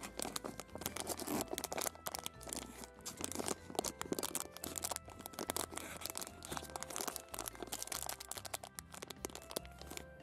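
Plastic candy wrapper crinkling and rustling in the fingers, a dense run of quick crackles, over soft background music.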